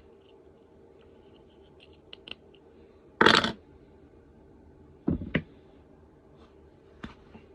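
Small objects being handled on a workbench: a short, loud scraping rattle about three seconds in, then two knocks and a few light clicks.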